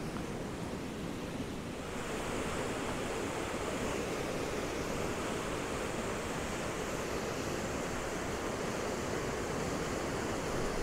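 Flood-swollen river water rushing steadily over a weir, a little louder from about two seconds in.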